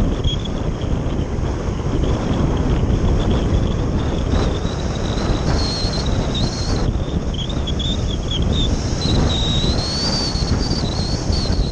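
Wind rushing and buffeting over the microphone of a camera riding on a Phase 6 radio-controlled slope glider in flight, steady and heavy in the low end. A thin high whistle wavers up and down in pitch over it.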